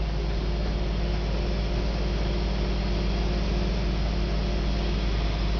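Crane engine running steadily, a constant low hum with a few steady low tones.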